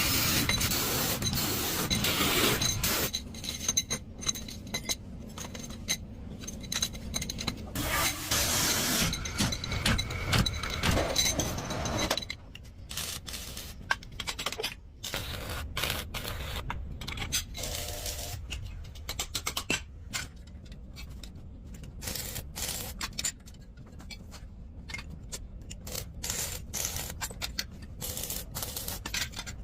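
Workshop handling and machining noises from bicycle manufacturing: scraping and clinking of metal parts. Stretches of hissing noise run through the first twelve seconds or so, followed by many short clicks and scrapes.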